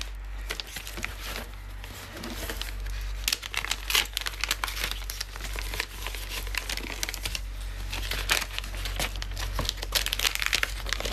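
Gift wrapping paper crinkling and rustling as a wrapped present is handled and unwrapped, with dense, irregular crackles.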